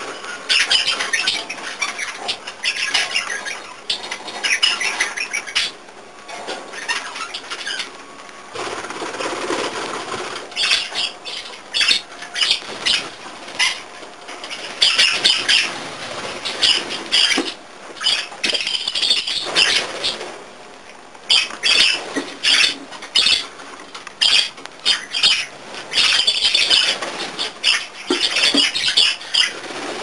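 Budgerigar squawking and chattering in short repeated bursts, the agitated, angry calls of a budgie telling others to go away, with sharp pecking clicks as it pecks and tugs at a seed-strewn floor.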